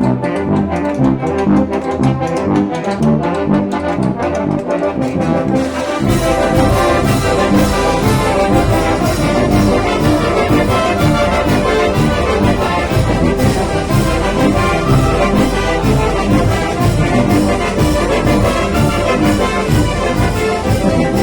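Mexican banda filarmónica playing, with trombones and trumpets carrying the music. About six seconds in, the sound becomes fuller and brighter, with a steady rhythmic pulse.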